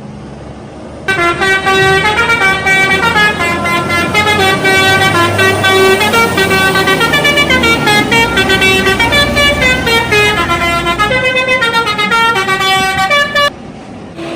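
Indonesian bus telolet horn playing a long multi-note tune, stepping from note to note. It starts about a second in and cuts off shortly before the end, with a low rumble underneath.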